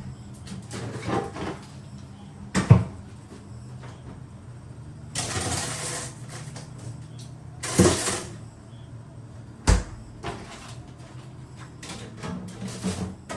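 Gear being handled during an indoor camping setup: several sharp knocks and thumps, about three of them loud, and a spell of rustling about halfway through, over a steady low hum.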